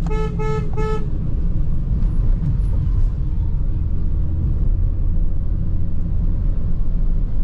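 Car horn honking three short times within the first second, followed by the steady low rumble of a moving car's engine and road noise.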